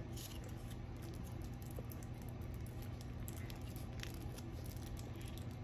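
Small plastic ketchup sachet being torn open and squeezed out: faint crinkling and scattered small clicks over a steady low hum.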